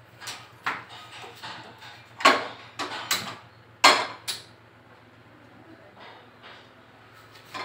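A frying pan and kitchenware knocking and clanking against a gas hob and countertop: a run of irregular sharp knocks, two of them much louder, a little over two seconds and about four seconds in, then only faint handling.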